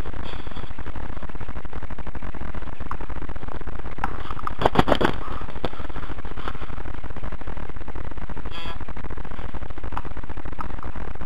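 Steady electrical buzz from the helmet camera's microphone, with a quick run of sharp knocks about halfway through.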